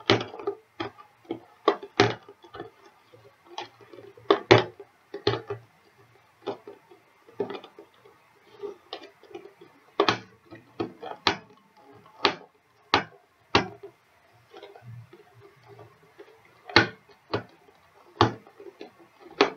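Fingers and fingernails picking and scratching at sticky tape on a cardboard box flap: irregular sharp clicks and ticks of tape and card, with faint rustling between them.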